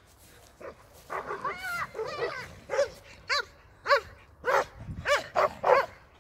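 A dog yipping in short, high-pitched barks, about two a second, with a few whining yelps before them about a second in: excited barking of dogs at play.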